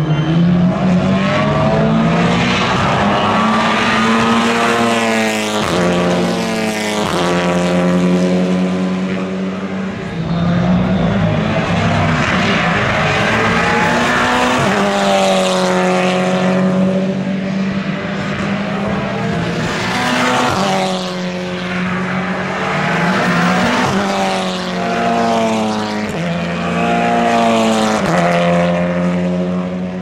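WTCR touring cars with turbocharged 2.0-litre four-cylinder engines passing at racing speed one after another, each engine note climbing in pitch through a gear and dropping at the upshift.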